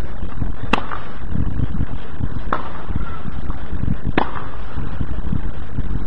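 Tennis rally: three sharp pops of the ball off the rackets, roughly two seconds apart, over a steady low rumble.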